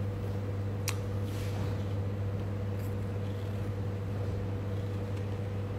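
Steady low background hum, with a single sharp click about a second in.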